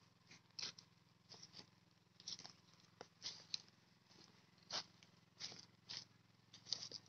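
Faint crunching footsteps on dry grass and fallen leaves, irregular, about one or two steps a second, over a steady low hum.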